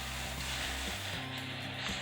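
Background music with a low bass line stepping from note to note.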